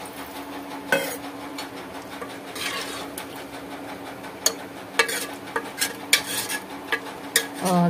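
Steel ladle stirring chicken curry in an aluminium pot, scraping and knocking against the pot, with sharp clicks coming more often in the second half. A steady low hum runs underneath.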